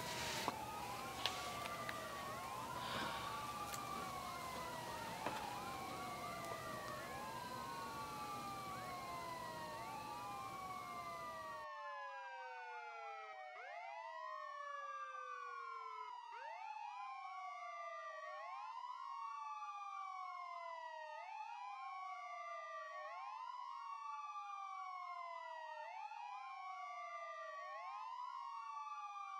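Several sirens wailing at once and out of step, each rising quickly and falling slowly about every two seconds. A background hiss with a few knocks drops away suddenly about twelve seconds in, leaving only the sirens.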